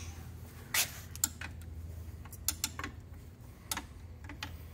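Steel wrench on the nut of the aftercooler's V-band clamp, giving scattered metallic clicks and ticks as it is turned and reset. A steady low hum runs underneath.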